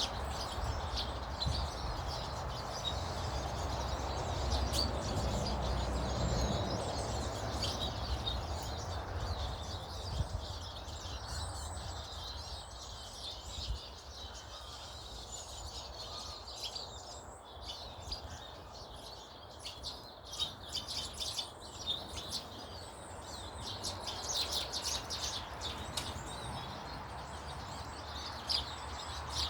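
Small garden birds chirping and twittering, many short high calls coming and going, over a steady low background rumble.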